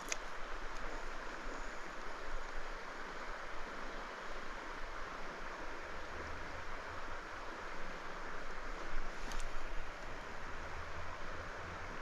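Steady rush of running trout-stream water.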